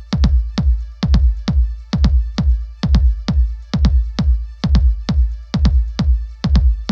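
Electronic dance music with a fast, steady drum-machine beat over a heavy bass line.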